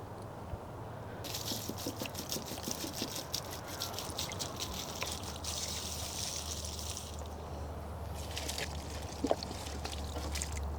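Water pouring and splattering onto garden plants and soil as they are watered; it starts about a second in and stops about seven seconds in. A single short knock comes near the end.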